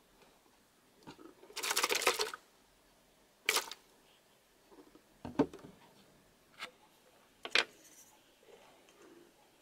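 Plastic containers handled on a wooden table: a short rasping rattle near the start, then a few separate clicks and knocks, one a duller thud about halfway through.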